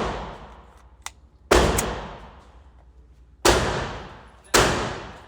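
Gunshots on a shooting range: three loud shots, the last two about a second apart, each trailing off over about a second, with the fading tail of another shot at the start and a faint sharp click about a second in.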